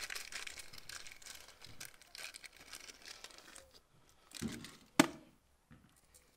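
Small plastic parts bag crinkling as it is opened and handled for a few seconds, then dying down. A single sharp click comes about five seconds in.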